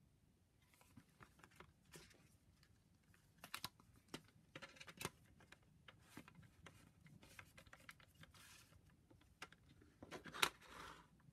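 Handling of a CD jewel case and its paper booklet: soft rustling and sliding of the booklet with scattered light clicks of the plastic case. The loudest sharp click comes near the end, as the plastic jewel case snaps shut.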